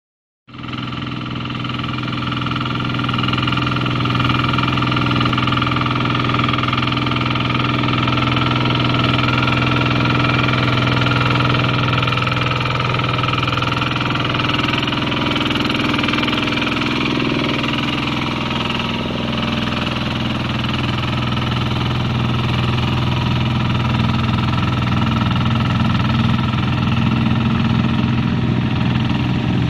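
Single-cylinder diesel engine of a two-wheel hand tractor with cage wheels, running steadily under load while plowing a flooded rice paddy. It starts about half a second in.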